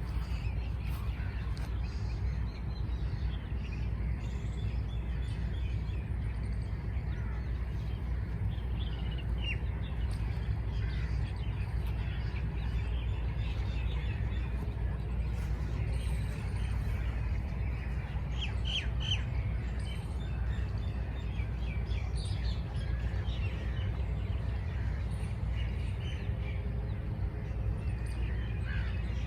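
Songbirds chirping: many short, scattered calls and trills, some bunched in quick runs, over a steady low rumble.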